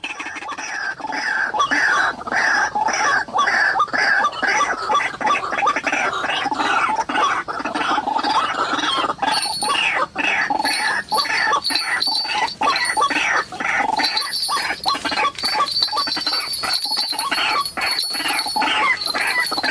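White-breasted waterhens (ruak-ruak) calling loudly and without a break, short harsh notes repeated several times a second.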